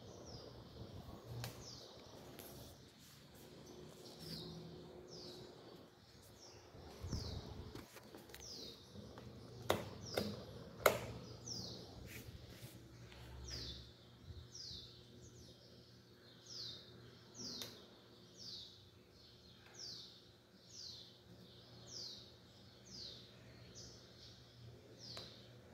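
A bird repeats a short, high, falling chirp about once a second over a faint steady hum. A few sharp clicks come around ten seconds in.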